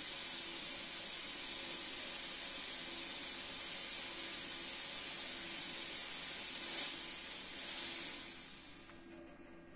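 Fog machine hissing steadily as it jets out fog. The hiss swells twice and then dies away near the end as the output stops, with a faint steady hum underneath.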